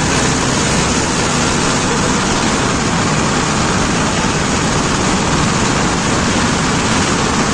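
Tractor engine running while driving along a road, under a steady loud rush of wind on the microphone.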